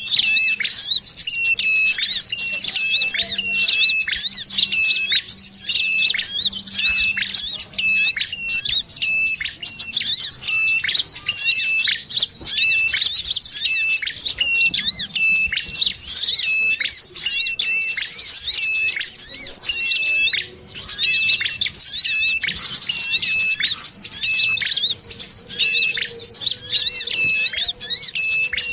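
Bird-lure recording of dense, high, chattering twitter from small birds ('crecetan sogon'), mixed with a short call repeated about one and a half to two times a second. It is the sogon lure combining red-headed prenjak and brown-throated sunbird (kolibri kelapa) calls. The chatter breaks off briefly twice, the way a looped track does.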